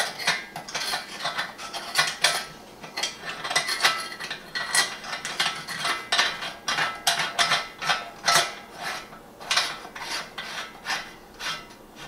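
Metal meat grinder attachment on a KitchenAid stand mixer being fitted and handled at its stuffing tube: irregular scraping, rubbing and clicking, several strokes a second.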